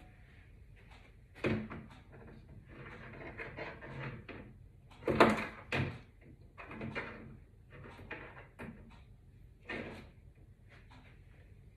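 Knocks and clunks of objects being handled and set down on a wooden display cabinet while it is wiped down, with rubbing and rustling between them. The loudest knock comes about five seconds in, with a second one right after.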